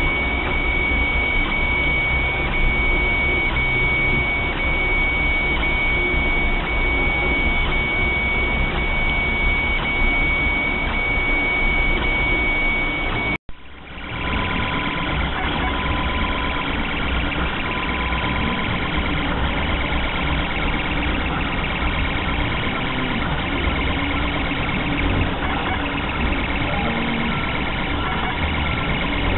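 Small stepper motors of 3D scanning and printing machines running: a steady mechanical whir with a thin high whine. The sound cuts out briefly about 13 seconds in and resumes with a different mix of whines.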